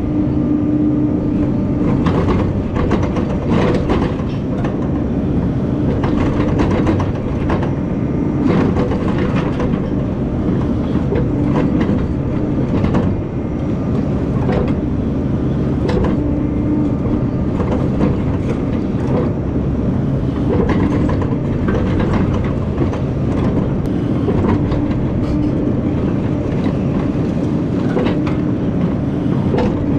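Excavator's diesel engine running steadily under load, with frequent sharp clanks and knocks of steel and rock as it digs and loads.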